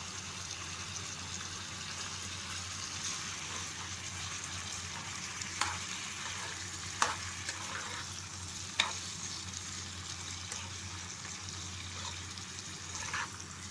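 Mutton liver sizzling steadily in hot oil in a kadai, with a spatula stirring it and knocking sharply against the pan three times in the middle. A low steady hum runs underneath.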